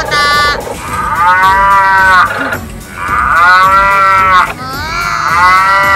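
Cow moos, three long ones, each rising and then falling in pitch; higher-pitched than a real cow, as in a recorded sound effect.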